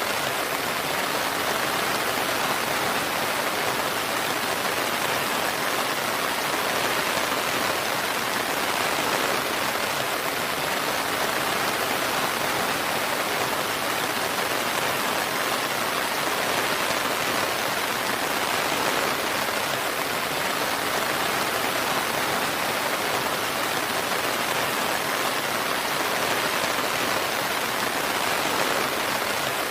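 Steady rain falling, an even hiss of rain with no let-up or thunder.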